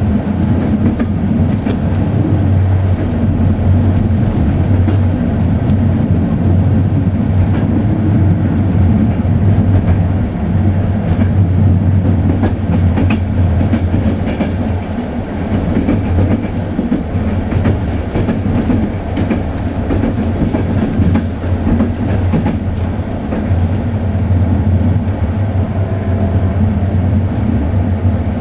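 Passenger train coach running along the line: a steady rumble of wheels on the rails with scattered sharp clicks as the wheels pass over rail joints.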